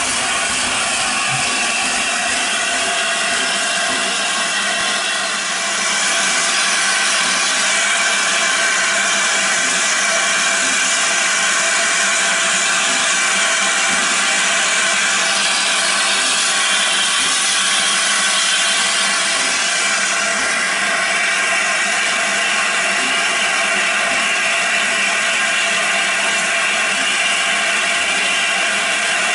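Steam locomotive letting off steam: a loud, steady hiss that steps up slightly about six seconds in.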